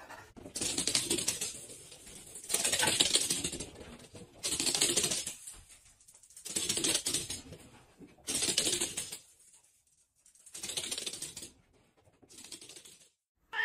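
Rapid dry clattering, like fast typing, in seven bursts of about a second each, roughly two seconds apart; the last is fainter.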